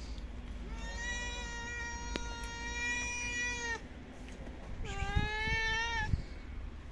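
Stray cats meowing: one long, drawn-out meow held at an even pitch for about three seconds, then a shorter meow about five seconds in, with a few soft low knocks around it.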